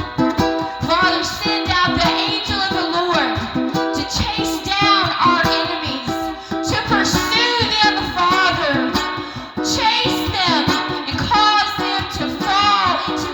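A worship song: singing over a strummed acoustic guitar or ukulele accompaniment.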